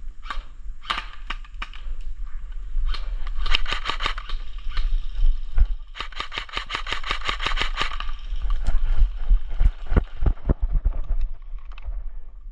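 Airsoft guns firing: scattered single shots, then two rapid bursts of sharp evenly spaced cracks, followed by a few heavier thumps near the end.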